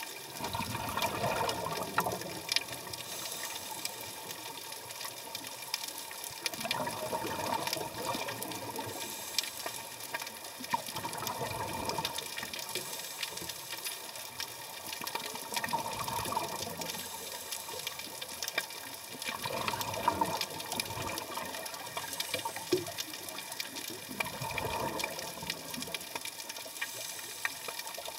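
Scuba regulator exhalation bubbles heard underwater, coming in bursts every four to five seconds with the diver's breathing, over a steady hiss with fine clicking.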